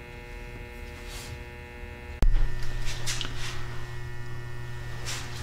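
Steady electrical mains hum. About two seconds in there is a sharp click, after which the hum is louder and deeper, with a few faint rustles.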